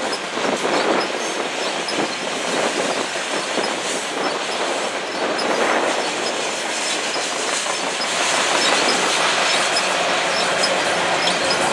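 Canpotex covered hopper cars of a potash freight train rolling past, a steady noise of steel wheels running on the rails, a little louder from about eight seconds in.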